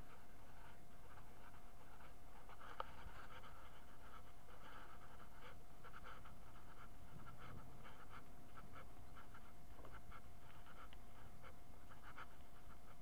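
A large dog panting, quick breaths coming a few times a second, with a faint steady electrical tone underneath.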